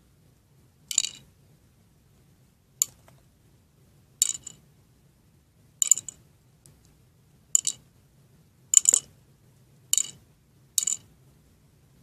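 Schleich toy figures clicking and tapping against each other: eight sharp, high clinks, one every second or so.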